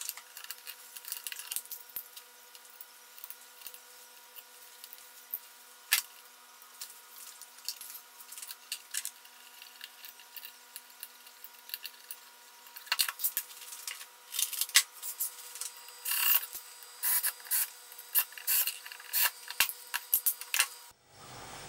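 Hands working on a cordless drill's plastic housing and parts on a wooden bench: scattered clicks and taps with short scraping rubs as the drill is put back together, busier in the second half.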